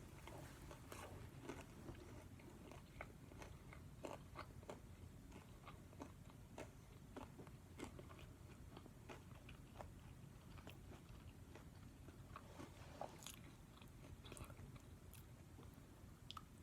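Faint chewing of a mouthful of KFC crispy fried chicken sandwich, with small crunching clicks coming irregularly, several a second.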